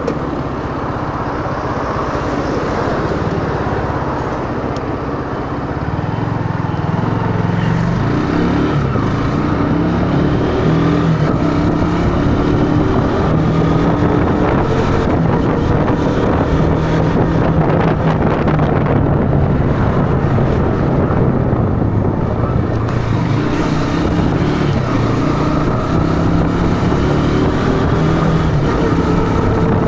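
Bajaj Pulsar AS150 motorcycle's single-cylinder engine running under way, rising in pitch as it accelerates several times, with wind noise on the microphone.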